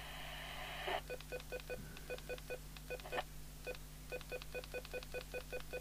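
TTI TCB565 CB radio: hiss from its speaker on an unwanted received signal cuts off about a second in. Then come rapid short electronic key beeps, several a second in uneven runs, as its channel buttons are pressed over and over while the set is stuck in scan.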